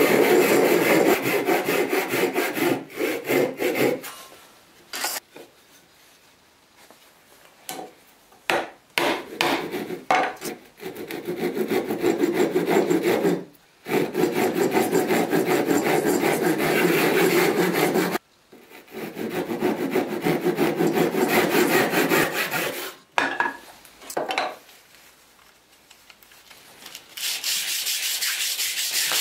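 Hand saw cutting through wood in rapid back-and-forth strokes, in several spells with short pauses and a few knocks between them. Near the end the sound changes to a steady hiss: a small wooden part is rubbed back and forth on a sheet of sandpaper.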